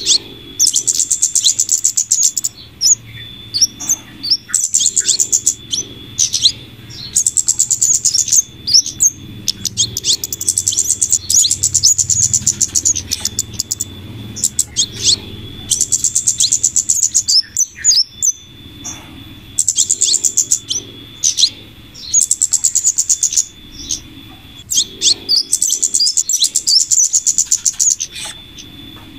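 Bird-lure recording mixing flowerpecker calls with female scarlet minivet calls: rapid, high-pitched chattering bursts a second or two long, repeating every few seconds, over a steady thin high whine.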